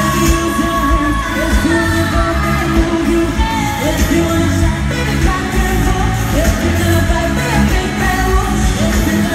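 Live amplified pop music: a female vocal group singing over a band with a heavy, pulsing bass beat, heard from within the crowd in a large hall.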